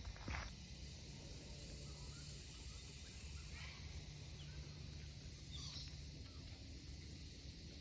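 Faint outdoor background noise with a steady low hum, and two brief faint chirps about three and a half and five and a half seconds in.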